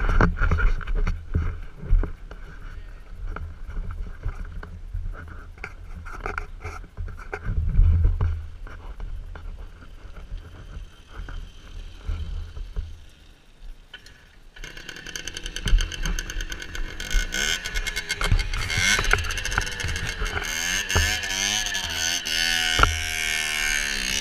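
Wind rumble and scattered knocks, then about fifteen seconds in a moped engine running close by, its pitch rising and falling as it is revved.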